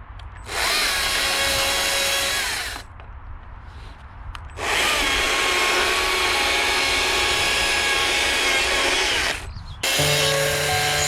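Petrol chainsaw revving up to cut into a Scots pine log, in two long cuts with the saw dropping back to idle between them. Near the end the sound changes to a steadier drone.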